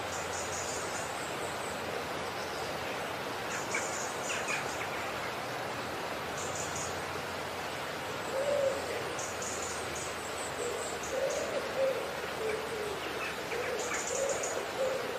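Repeated short, low hooting calls from a bird, starting about eight seconds in, with short bursts of high insect chirping over a steady hiss.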